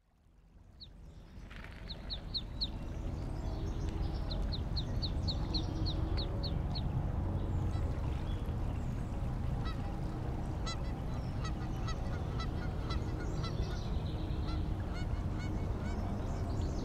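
Canada geese honking over a steady low outdoor ambience, fading in from silence at the start. Runs of quick high bird chirps come in the first half, and short repeated calls follow through the second half.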